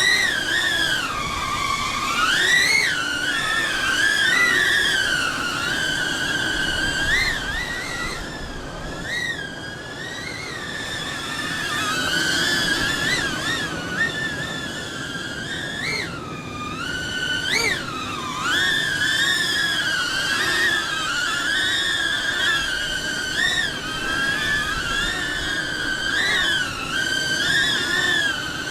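Small quadcopter FPV racing drone flying, its motors and propellers giving a steady whine whose pitch wavers up and down continually as the throttle changes.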